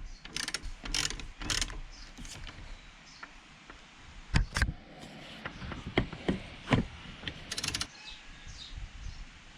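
Ratchet wrench clicking in short strokes as the water pump bolts on a BMW M43 engine are tightened down, followed by a few scattered sharp knocks of metal tools and a quick rattle of clicks near the end.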